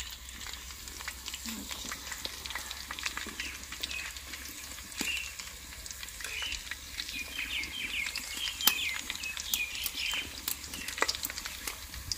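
Hot oil sizzling and crackling in a pan where chicken legs are deep-frying, with scattered sharp pops and one louder pop about three quarters of the way through.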